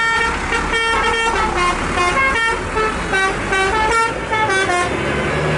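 Telolet basuri multi-tone bus horn playing a quick tune of short stepped notes, with the bus engine rumbling underneath; the tune gives way to a lower steady tone near the end.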